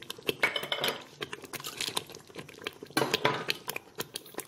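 Thick masala sauce boiling hard and spluttering in an electric pressure cooker's inner pot, a busy patter of small pops, with a utensil scraping and clinking against the pot twice, about half a second in and about three seconds in.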